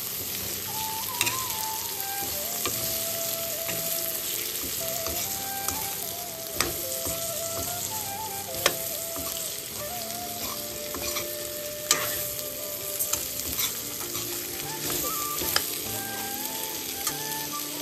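Green beans sizzling as they are stir-fried in a steel wok, with a metal spatula scraping and clinking against the pan now and then.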